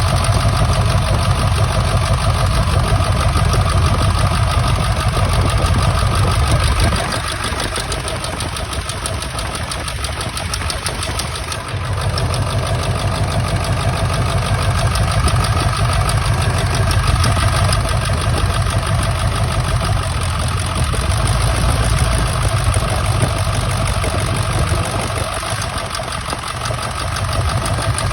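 Ford 7.3 L Powerstroke V8 turbo diesel idling roughly with an injector misfire. The deep low rumble drops away for a few seconds about seven seconds in and again near the end.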